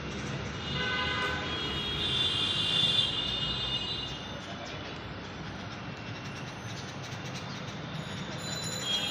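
A horn sounds twice, a higher multi-toned blast about a second in and a louder one around two to three seconds in, over a steady low rumble of traffic or rail.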